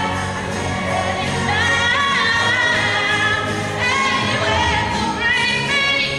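Stage musical song: a female lead and a female chorus singing a show tune over an instrumental accompaniment, with held notes.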